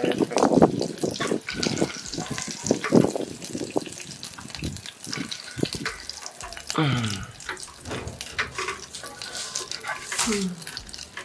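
Water running and splashing, as at a tap or basin during kitchen washing, with a few brief voice sounds.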